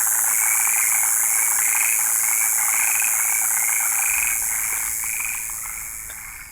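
A dense chorus of frogs calling, rapid croaks massed together and rising in repeated pulses, over a steady high hiss. The chorus fades out over the last two seconds.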